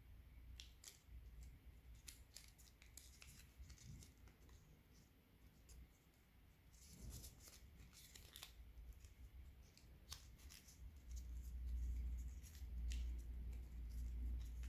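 Origami paper crackling and rustling as it is folded and creased by hand, in scattered small crackles. A low rumble grows louder in the last few seconds.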